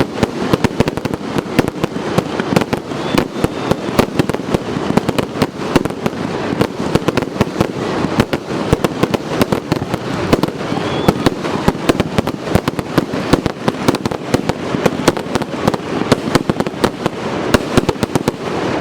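Fireworks display going off in a dense, continuous barrage of rapid bangs and crackles.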